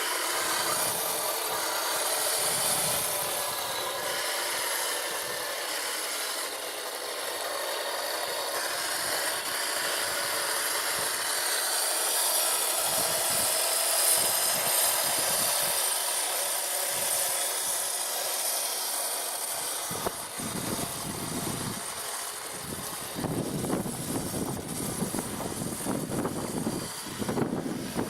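Heng Long 1/16-scale RC Leopard 2A6 tank running, its small electric drive motors, gearboxes and tracks making a steady grinding whir. About twenty seconds in, the sound turns into lower, uneven rumbling.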